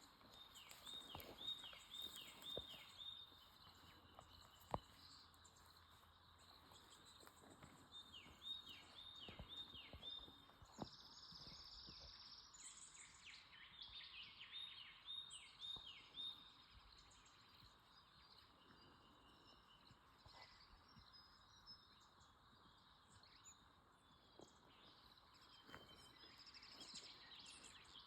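Faint bird song: three runs of about five quick, high, down-slurred notes each, over a quiet steady hiss, with a single sharp click about five seconds in.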